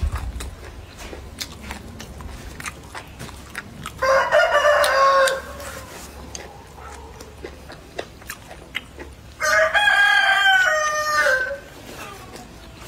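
A rooster crowing twice, the second crow a little longer. Between the crows come small clicks and eating sounds.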